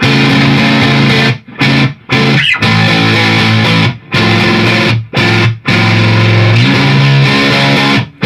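Electric guitar through a Beetronics Tuna Fuzz pedal into a Marshall Plexi head and Marshall cabinet, picked up by a room microphone: fuzzy, distorted chords rung out and cut off sharply, with short breaks between them.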